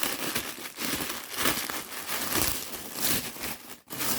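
Crinkling and rustling of gift packaging handled by hand, in irregular strokes.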